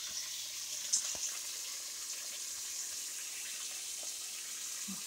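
Flour-dredged chicken breasts searing in hot olive oil in a deep pot: a steady high sizzle, with one light click about a second in.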